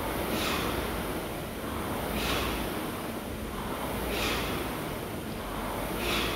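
Concept2 air rowing machine worked hard: a whooshing surge from the fan flywheel with each drive stroke, about every two seconds, with heavy breathing in time with the pulls.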